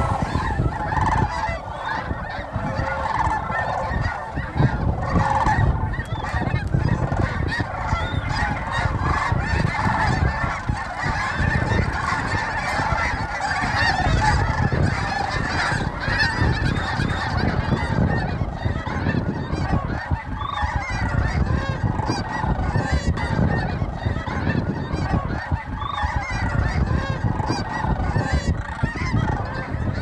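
A large flock of sandhill cranes calling all at once, many overlapping rolling, trumpeting calls over a low rumble.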